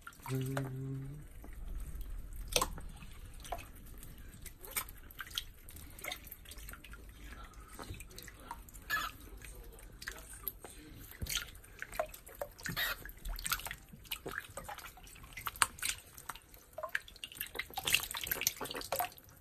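Small irregular splashes and drips of shallow water in a sink as a group of hairless rats wade and paddle about during a bath, growing busier near the end.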